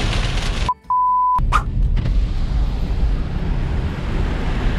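Rain on a car's windshield and roof cuts off, and a single steady electronic beep sounds for about half a second. After a click, a steady low rumble follows.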